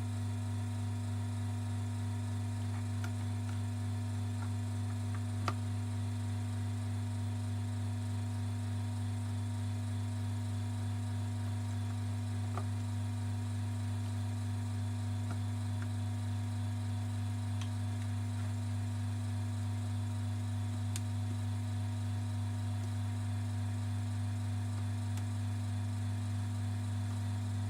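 Steady low electrical hum, like mains hum, with a few faint single clicks of small parts being handled.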